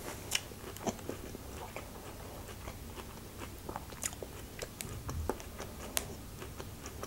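Close-miked chewing: soft, scattered wet mouth clicks and smacks, a few of them sharper, as a person eats.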